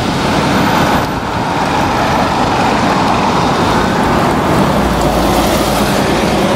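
Street traffic at an intersection, with a city bus driving past close by. Near the end a low rumble and a rising whine come in as an articulated tram rolls through the junction.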